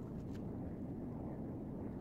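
Steady low rumble of wind on the microphone, with a few faint clicks.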